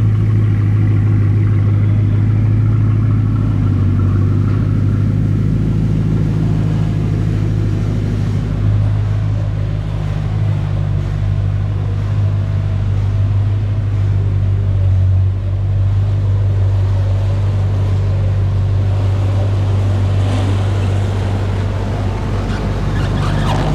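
Bugatti Chiron Sport's quad-turbocharged 8.0-litre W16 engine idling with a steady low hum. More rushing noise comes in near the end.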